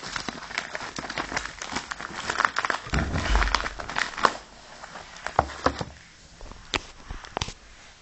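Packaging being handled and opened: crinkling and rustling with many small clicks, and a low thump about three seconds in. It thins out to a few separate clicks near the end.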